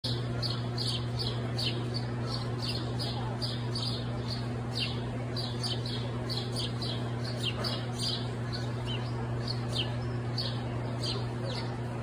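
House sparrow chirping repeatedly, short single chirps about two a second, over a steady low hum.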